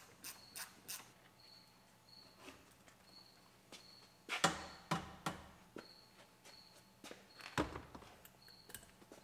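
Faint clicks, taps and rubbing of hand-tool work on a pickup's door-frame trim and screws, with two louder knocks or scrapes about four and a half and seven and a half seconds in. A faint high beep sounds briefly now and then, often twice in a row.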